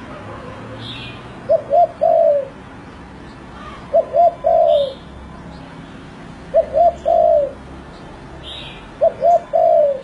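Spotted dove cooing: four phrases about two and a half seconds apart, each two short coos followed by a longer, falling coo.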